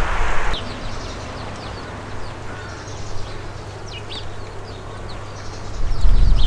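Sparrows chirping: many short, high chirps. A low rumble is loudest in the first half second and comes back from about six seconds in.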